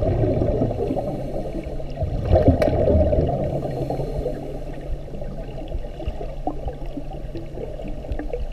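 Muffled sloshing and gurgling water noise, with a low hum underneath and almost nothing in the upper range.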